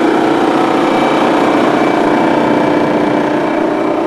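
A 2023 KAMAZ 54901 truck tractor's diesel engine idling steadily and smoothly.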